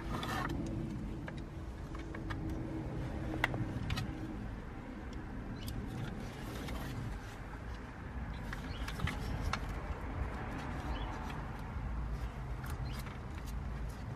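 Scattered sharp plastic clicks and handling noise as wiring-harness connectors are pushed into the back of a car stereo head unit and the unit is turned over in the hands, over a steady low rumble.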